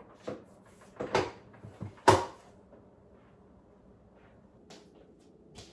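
A handful of short knocks and clunks, the loudest about two seconds in, as things are handled or moved about.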